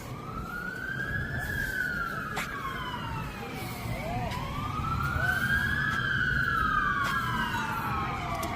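Emergency vehicle sirens wailing, the pitch slowly rising and falling over several seconds, with two wails overlapping out of step. A low rumble runs underneath.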